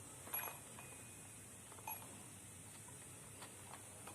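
A few faint clicks from the buttons of a digital alarm clock being pressed as its time is set, with a short high beep about a second in.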